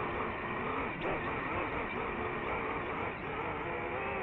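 DJI FPV drone's motors and propellers whining steadily, their pitch wavering up and down with throttle changes, over a low rumble of air noise.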